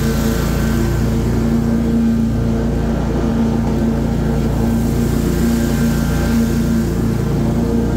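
Stand-on zero-turn lawn mower running steadily while mowing, its engine and spinning blades making a constant even drone with a steady hum.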